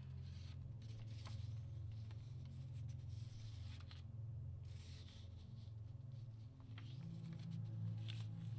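Paper photographs being handled and shuffled: light rustling and sliding of the prints with occasional soft ticks. Underneath is a low steady drone that shifts to a slightly higher note about seven seconds in.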